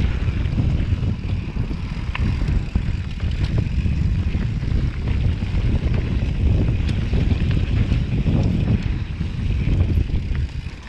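Mountain bike descending a dirt trail at speed: wind buffeting the microphone over the rumble of tyres on dirt, with scattered clicks and rattles from the bike.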